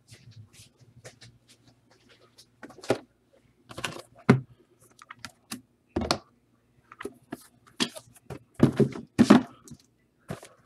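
Irregular clicks and knocks of objects being handled and set down on a tabletop, with the loudest knocks near the end, over a faint steady low hum.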